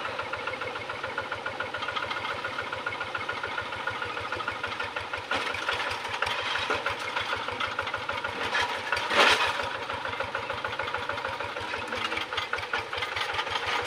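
Two-wheel hand tractor's single-cylinder diesel engine running steadily with an even, rapid beat as the cage-wheeled tractor is walked through a concrete irrigation channel. A brief, louder noisy burst comes about nine seconds in.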